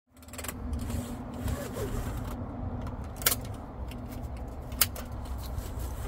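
Golf cart seat belt being handled: the webbing pulled out, with two sharp clicks of the belt hardware about a second and a half apart, over a steady low rumble.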